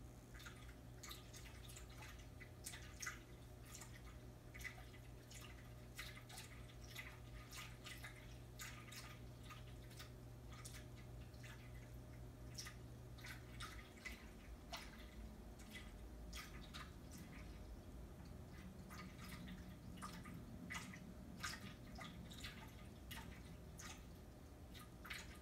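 Cat lapping water from the thin stream of a small drinking fountain: a string of short wet clicks, a few a second, at irregular spacing.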